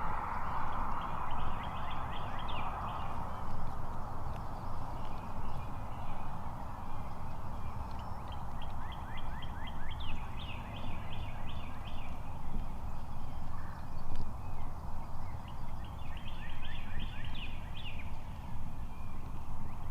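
Wild turkeys calling in three bouts of quick, rattling note series: one near the start, one in the middle and one near the end. A steady low rumble runs underneath.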